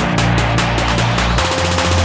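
Electronic dance music with a steady beat and heavy sustained bass.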